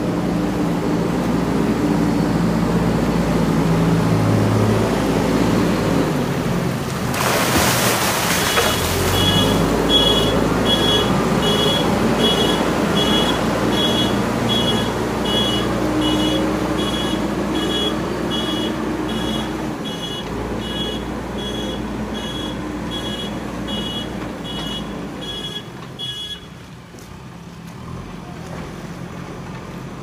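JCB 3DX backhoe loader's diesel engine running under load, with a brief rush of noise about seven seconds in. Its reversing alarm then beeps steadily, about one and a half beeps a second, until the engine drops back near the end.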